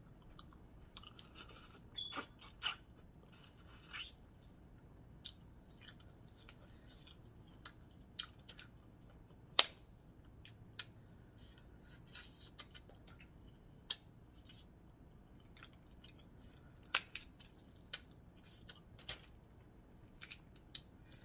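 A person eating seafood close to the microphone: faint chewing with scattered short, sharp clicks and cracks, the sharpest about halfway through.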